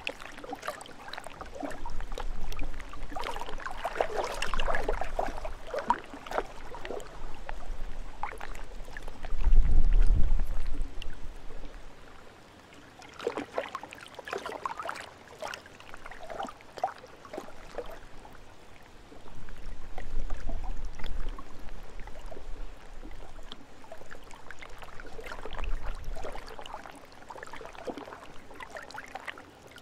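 Small lake waves splashing in irregular surges, with gusts of wind rumbling on the microphone now and then.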